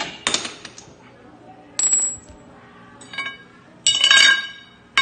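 Steel hand tools clinking against the steel suspension parts while a stabilizer link is taken off: about five sharp metal clinks with a bright ringing after them, the loudest and longest near four seconds in.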